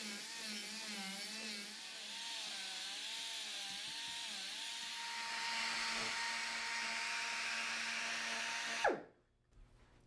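Air-powered die grinder with a carbide ball mill carving dense purple heart wood: a high whine over a steady hiss, its pitch wavering up and down as the burr is worked over the wood, then settling and holding at one pitch. About nine seconds in it is shut off and the pitch drops away quickly into near silence.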